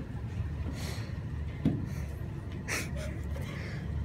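Low rumble of a phone being handled and moved while recording, with a short breathy hiss near the microphone a little under three seconds in and a fainter one about a second in.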